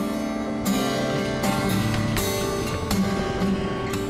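Background music: solo fingerstyle acoustic guitar with regular percussive strikes, about one every three-quarters of a second.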